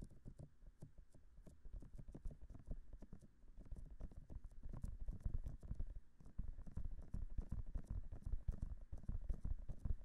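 Fingertips rubbing and pressing the silicone ears of a binaural microphone, heard right at the mic as a quick, continuous run of muffled low thuds and soft crackling rustles. It gets louder about four seconds in.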